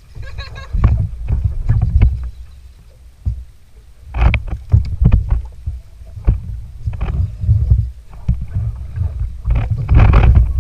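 Wind buffeting the camera microphone and water slapping around a plastic kayak hull, a gusting low rumble, with scattered knocks and clicks from handling the fishing rod and reel while fighting a fish.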